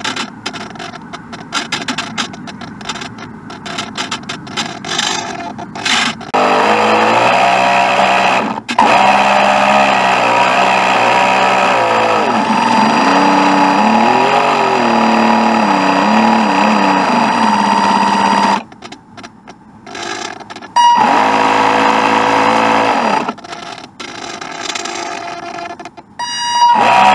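Small electric motor of a radio-controlled boat whining, its pitch rising and falling in smooth sweeps as the throttle changes, with a break of a couple of seconds. Before the motor comes up, the first few seconds hold scratchy crackling and clicks.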